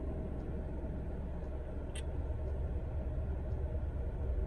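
Steady low rumble of a car heard from inside its cabin, with one brief light click about two seconds in.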